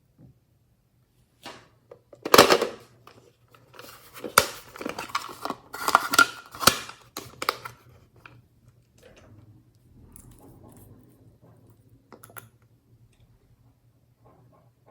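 Glossy slime being worked by hand, giving sticky pops and clicks: a loud pop about two and a half seconds in, a busy run of pops and crackles up to about eight seconds, then fainter crackling.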